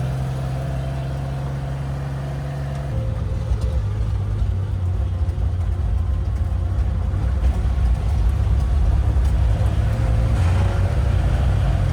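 Racing car engine running, steady at first; about three seconds in the sound turns into a rougher, slightly louder low rumble that keeps building gently.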